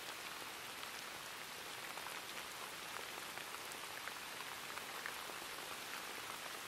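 Steady rain: an even hiss with faint scattered drop ticks.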